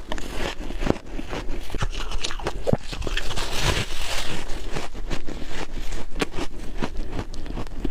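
Close-miked biting and chewing of soft, flavoured freezer frost: a steady run of irregular crunches and crackles.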